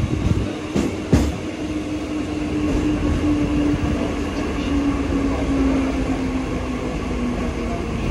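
Mumbai suburban electric local train running, with a steady rumble, two sharp knocks about a second in, and a low whine that falls slowly in pitch.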